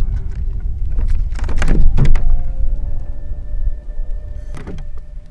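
Wind buffeting the microphone in a dense low rumble, with a louder rushing burst around two seconds in. From about halfway through, faint held tones of soft background music sit underneath.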